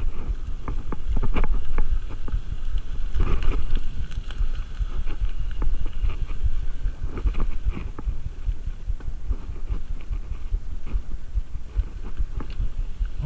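Mountain bike riding down a dirt forest trail: the tyres roll over dirt and leaves with a steady low rumble, and the bike rattles and knocks often as it goes over bumps.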